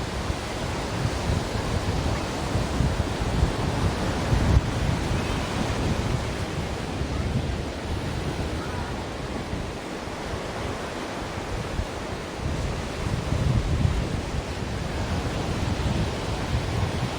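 Ocean waves washing onto a shore in a continuous surf hiss, with a low rumble that swells and eases every few seconds.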